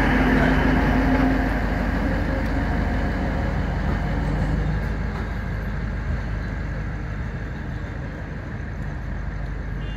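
Passenger train rumbling as it pulls out of the station, with a steady hum at first, then fading gradually as it moves away.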